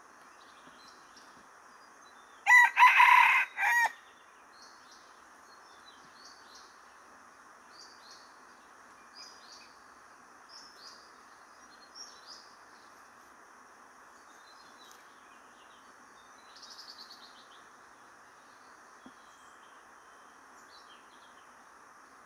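Red junglefowl rooster crowing once, loud, about two and a half seconds in, for about a second and a half. Small birds chirp faintly through the rest.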